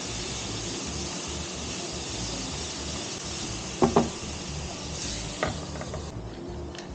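Food sizzling in a hot pan, a steady hiss that cuts off suddenly about six seconds in. Two sharp knocks come just before four seconds in, and a lighter one shortly after.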